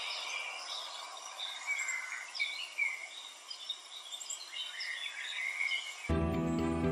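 Outdoor wetland ambience: many short, high bird chirps and calls over a steady hiss. Background music cuts in suddenly about six seconds in.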